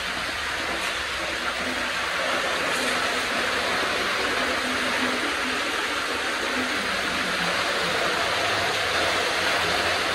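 Steady rush of water flowing through an underground tunnel.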